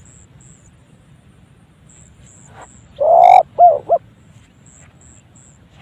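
Spotted dove giving an unusual call: one loud harsh note about three seconds in, then two short coos that bend up and down in pitch. Faint high chirps repeat in the background.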